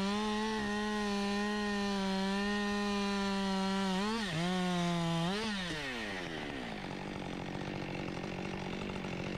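Husqvarna chainsaw at full throttle cutting into a fallen tree trunk, its engine note steady under load. The revs dip and flare twice around four to five seconds in, then drop and run on more roughly.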